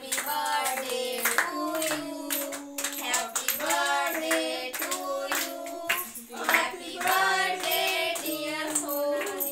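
Singing with long, wavering held notes, accompanied by hand clapping.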